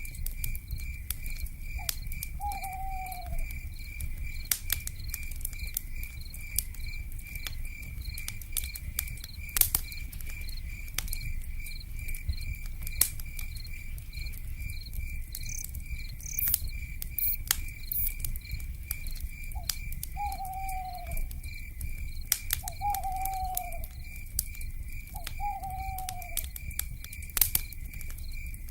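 Fire crackling with scattered sharp pops over a low rumble, under a steady, evenly pulsing insect trill. A short, falling owl call comes about two seconds in, and three more come close together near the end.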